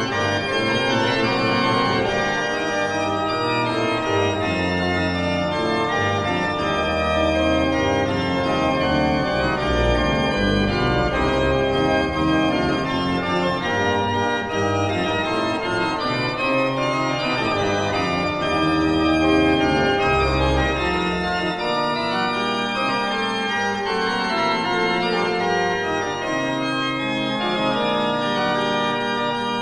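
Pipe organ playing a chorale prelude: several voices in sustained, slowly moving chords over low bass notes that come and go.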